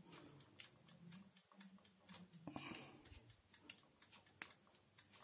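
Near silence with a few faint, scattered light clicks: multimeter probes being handled against the terminals of a deep fryer's thermostat while its contact resistance is measured.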